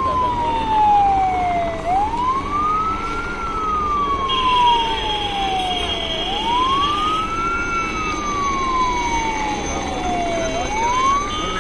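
Fire engine's siren wailing in a repeating cycle, a quick rise in pitch and then a slow fall, about once every four seconds, over steady road traffic noise.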